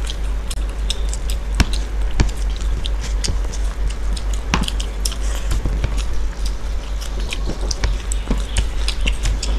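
Close-miked eating sounds: chewing, lip smacks and scattered wet clicks as two people eat rice and chicken curry by hand, over a steady low hum.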